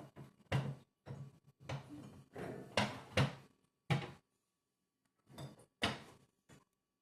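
Food containers being handled and moved around in a fridge: a run of knocks, bumps and clatters as bottles and jars are picked up and set down, loudest a little after three seconds in, then stopping before the end.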